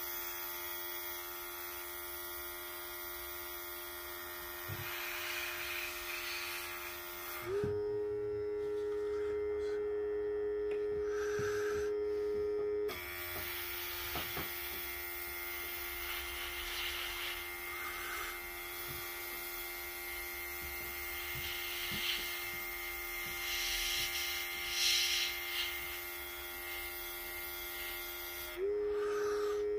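Small airbrush compressor running with a steady electric hum, under the hiss of air and paint spraying from a gravity-feed airbrush. Twice, about seven seconds in and again near the end, the spraying hiss stops and the compressor's hum jumps higher in pitch and louder for several seconds.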